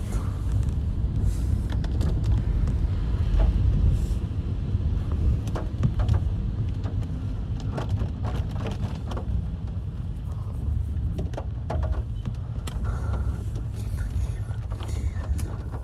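Road noise inside a moving taxi in the rain: a steady low rumble with scattered faint ticks and clicks.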